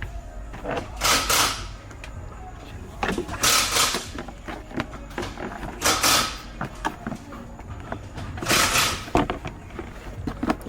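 Short noisy swishes about every two and a half seconds, with small clicks and knocks in between, from hands-on work inside a pickup truck's cab.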